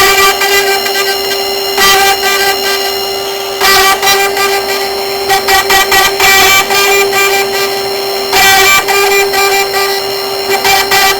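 CNC router spindle running with a steady high whine while its bit carves, the cutting noise swelling and easing every couple of seconds.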